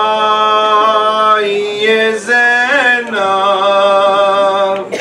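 A man chanting a noha, a Shia mourning lament, unaccompanied into a microphone. He holds long notes that waver slightly and breaks off briefly about two seconds in.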